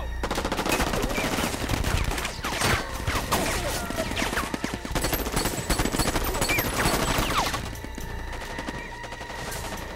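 Rapid automatic gunfire in a film soundtrack: continuous, dense volleys of shots for about seven and a half seconds, then it drops away to a quieter background.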